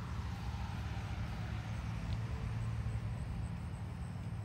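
Steady low rumble of road traffic on a nearby main road.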